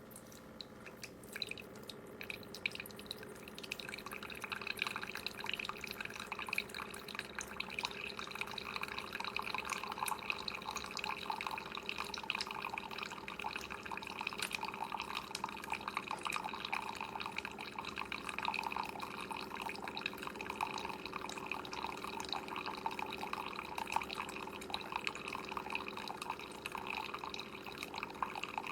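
Keurig K-Express single-serve coffee maker brewing: a steady stream of coffee spattering and dripping into the cup. It builds over the first few seconds, then runs on evenly.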